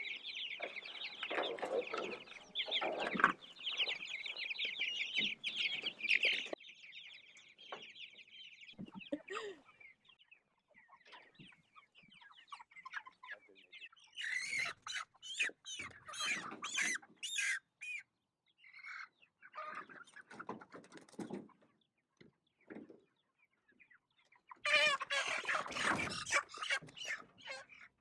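A flock of Cornish cross broiler chickens clucking: dense at first, then in scattered calls, with a louder burst of calls near the end as the birds are handled.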